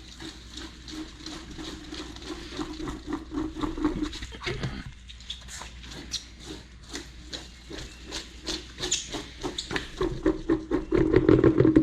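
A spare tire being rolled and bounced around to spread tire sealant inside it: a long run of quick, uneven knocks and rubbing of rubber on the floor.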